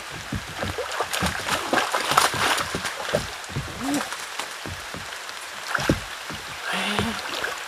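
Splashing and sloshing of a hooked snakehead being reeled in and landed, over the steady patter of rain on the water.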